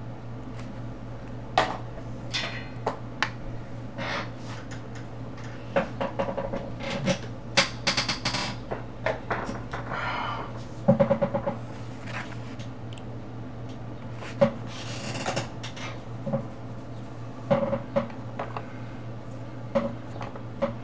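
Coloring tools being handled and used on paper: scattered hard clicks and taps as they are picked up, put down or capped, with short bursts of quick scribbling strokes. A steady low hum runs underneath.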